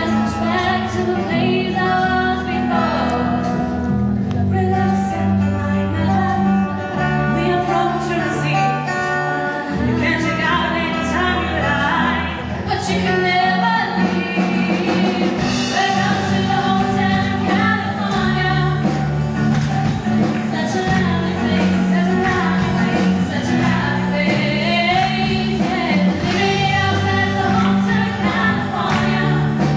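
Live band playing with female voices singing over steady bass notes.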